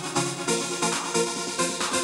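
Electronic music: a steady fast pulse of pitched synth notes over a beat.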